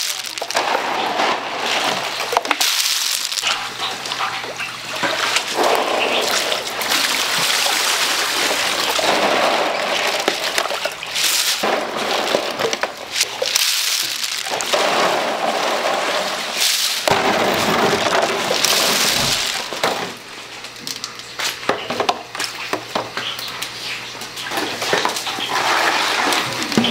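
Cockles in their shells being handled in water: a steady rain-like clatter of shells and splashing, with scattered clicks and knocks.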